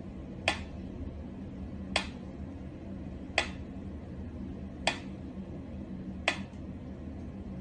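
Mechanical pyramid metronome ticking slowly, one sharp click about every second and a half, over a steady low hum.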